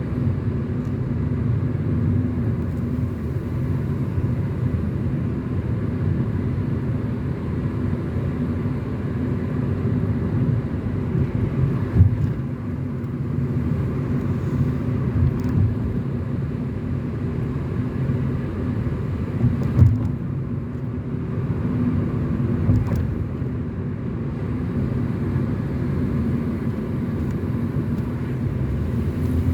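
Car driving along at a steady pace: continuous low engine and road rumble with a steady hum, and two brief knocks from the road surface about twelve and twenty seconds in.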